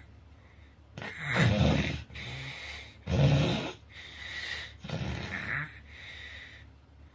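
A sleeping person snoring heavily. Two loud snores come about two seconds apart, starting about a second in, with quieter noisy breaths between and after them.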